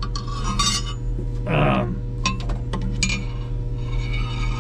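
A metal fire hook knocking and scraping on the floor of a wood-fired pizza oven as logs are pushed into place around a fresh fire, with scattered light clinks and one longer scrape about a second and a half in. A steady low hum runs underneath.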